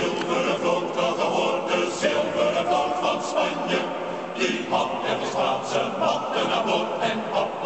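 Music with a choir of voices singing over a steady beat.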